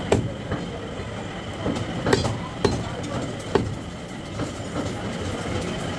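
Butcher's cleaver chopping goat meat on a wooden log chopping block: four sharp knocks at uneven intervals, over a steady background rumble.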